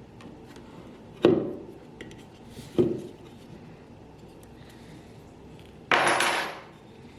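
Two knocks, a second and a half apart, each with a short ring, then a harsh rasping hiss lasting about a second: workshop handling sounds.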